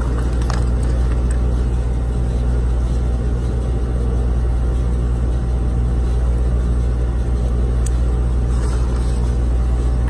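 Air-conditioning condensing unit running with a steady low hum from its compressor and condenser fan, pumping refrigerant back into the outdoor unit during a pump-down. A couple of light clicks sound over it, near the start and again near the end.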